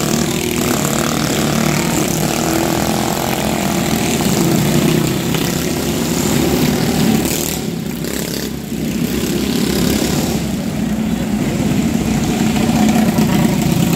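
Several small engines of race vehicles running at speed on a dirt track, a steady buzzing drone that dips briefly about eight seconds in and then builds again.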